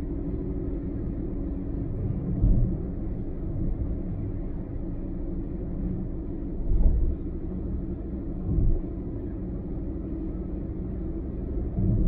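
Car driving on a highway: a steady low rumble of road and engine noise. Three brief, heavier low thumps rise out of it, a couple of seconds apart.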